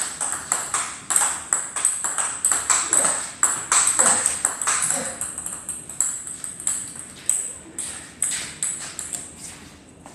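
Table tennis rally: the plastic ball clicking quickly back and forth off the bats and the table top, a few hits a second, thinning out near the end.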